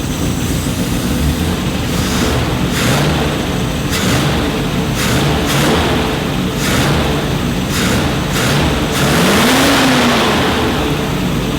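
Range Rover's Rover 3.5 V8 running and being blipped on the throttle again and again, with one longer rev that rises and falls near the end. It is running freshly after its carburettors and intake manifold were rebuilt and cleaned.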